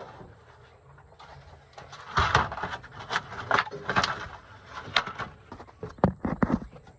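Irregular knocks and clunks of tools and fittings being handled and set down inside a truck toolbox, starting about two seconds in.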